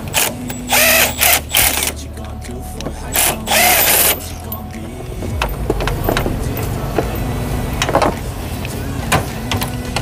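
A power tool running in short bursts, about five in the first four seconds, working the bolts of an engine mount, followed by scattered metal clicks of hand tools over a steady low hum.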